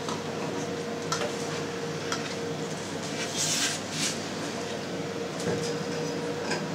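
Plastic cheese mould and follower being handled on a steel tray: a few soft knocks and a brief scrape about halfway through, over a steady hum.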